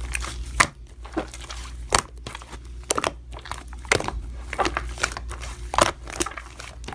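Slime being squeezed and pressed by hand, giving irregular crackling clicks and pops.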